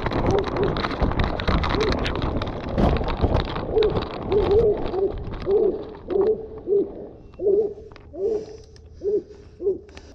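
Bear hound baying in short repeated bawls, about two a second, over loud rustling and crunching of corn stalks and leaves. The rustling dies down about halfway through, and the bawls come further apart toward the end.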